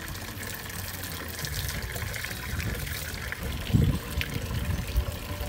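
Water poured slowly from a plastic mug over a Doberman's wet coat, splashing and dripping off the dog. A brief low thump sounds about four seconds in.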